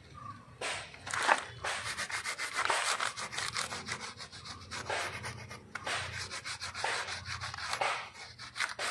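A piece of coconut husk with coir fibres is scrubbed back and forth over a rubber tree's tapped bark panel, daubing on black rubber-coat protective paste. It makes quick, repeated rasping strokes that start about half a second in.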